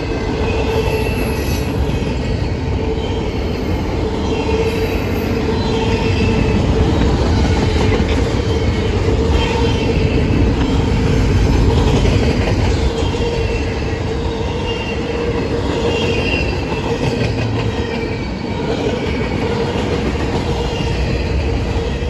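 Double-stack intermodal container train rolling past: a steady rumble and rattle of the well cars on the rails, with short high squeals from the wheels coming and going throughout.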